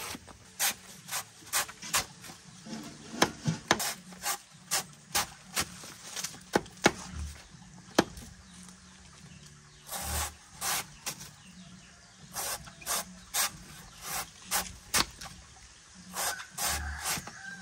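Short, sharp scraping strokes repeated about twice a second in bursts, with pauses between, and a few dull thuds among them.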